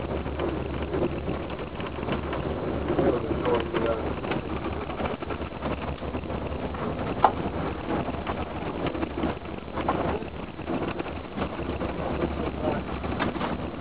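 Steady low hum of a vehicle's engine and road noise, heard from inside while driving, with one sharp knock about halfway through.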